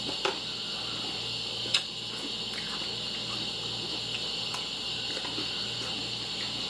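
Steady hiss with a few short, sharp clicks of cereal being eaten with a spoon, the loudest nearly two seconds in.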